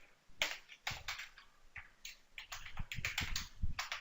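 Typing on a computer keyboard: irregular key clicks, coming quicker in the second half.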